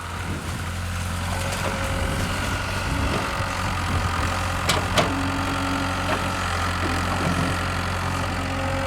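Hitachi excavator's diesel engine running steadily, with two sharp clacks about five seconds in.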